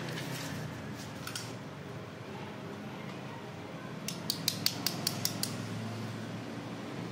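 A quick run of about seven sharp clicks over a second and a half, from small hard copier parts being handled, with a few fainter clicks earlier, over a steady low hum.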